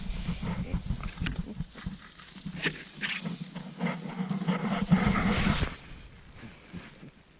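Dry fallen leaves crunching and rustling close to the microphone, with camera handling noise and sharp crackles, then dying away about two-thirds of the way through.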